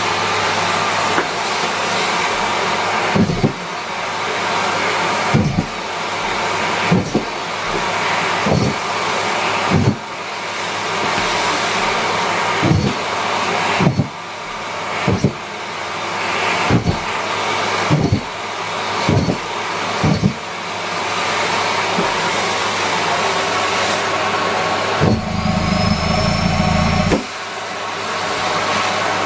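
Miele Complete C3 canister vacuum cleaner running at a steady hum. Its sound jumps briefly every second or two as socks are sucked into the hose, and it runs louder and deeper for a couple of seconds about 25 seconds in.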